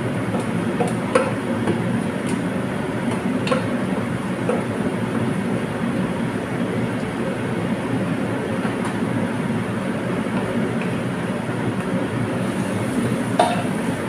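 Wok on the stove with rice frying in it: a steady low rumbling noise, with a few light clicks and one sharper knock near the end as the spatula strikes the pan.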